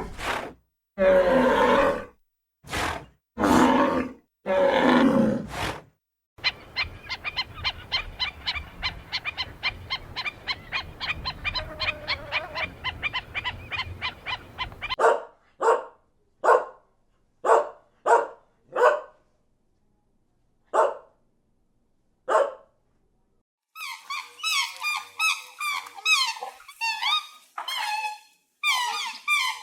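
A run of different farm animal calls cut one after another. First come several loud drawn-out calls, then a fast pulsed run of calls. After that there are single short calls about a second apart, and near the end quick high-pitched chirping.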